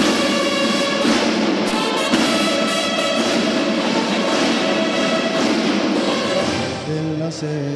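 Brass and drums of a police banda de guerra (bugle-and-drum corps) playing a march for the flag salute. About seven seconds in, the music shifts to lower, held notes that step in pitch.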